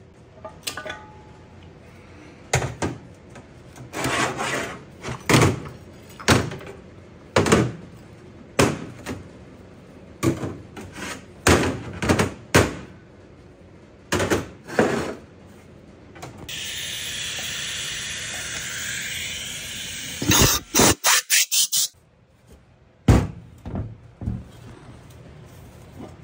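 Metal parts of a TH350 automatic transmission being handled and set down on a steel bench during teardown: irregular clanks and knocks throughout. About two-thirds of the way in comes a steady hiss of about four seconds, followed by a quick run of strikes.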